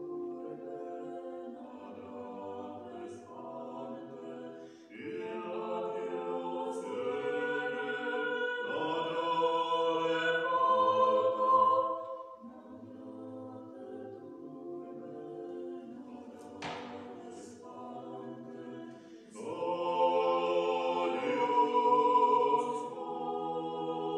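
Church organ playing held chords under sung hymn voices, with two louder, fuller phrases: one about five seconds in and one near the end. A brief click is heard about two-thirds of the way through.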